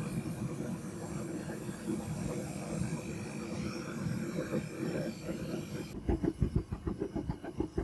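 Homemade gas forge running with a steady roar of its burner while a block heats inside. After about six seconds the roar stops and a rapid low pulsing takes over.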